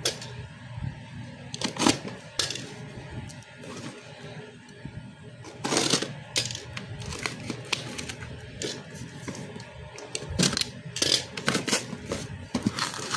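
Taped cardboard shipping box being torn open by hand, with irregular ripping and crackling of cardboard and packing tape. There is a cluster of rips about six seconds in and more near the end.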